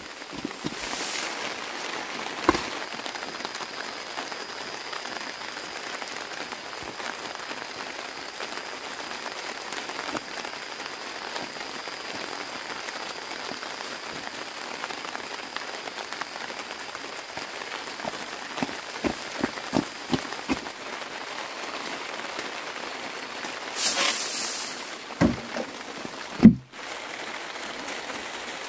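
Steady hiss of light rain, with scattered sharp knocks through it. Near the end there is a short louder rush and a few heavy thumps.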